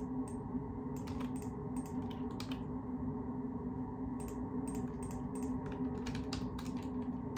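Typing on a computer keyboard: irregular key clicks in short bursts, with a brief pause near the middle, over a steady low hum.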